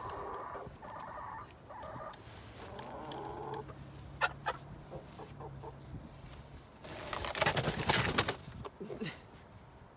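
Chickens clucking in short calls, with a loud rustling burst lasting about a second near the end.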